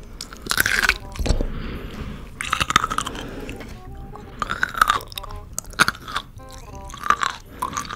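Loud, wet crunching as a whole dill pickle is bitten and chewed close to a microphone, coming in several bursts.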